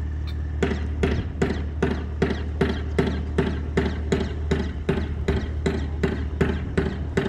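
A regular series of short, sharp knocks, about two and a half a second, starting about half a second in, over a steady low hum.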